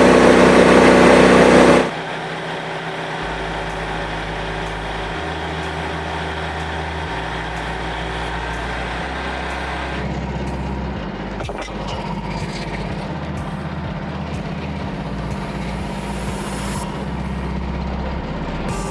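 Portable bandsaw mill's gasoline engine running while the band blade cuts through a white oak log. Loudest for the first two seconds, then it drops to a quieter, steady running level.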